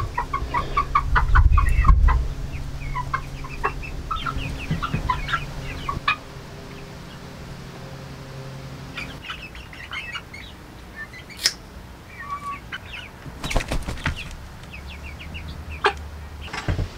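Domestic hens clucking in short chirpy notes and wings flapping in a couple of brief flurries about two-thirds of the way in. A low rumble in the first two seconds and a low steady hum that stops about halfway through.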